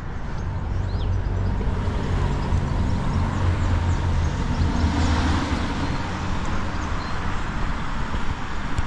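A road vehicle driving past with its engine and tyre noise, growing loudest around the middle and easing off near the end.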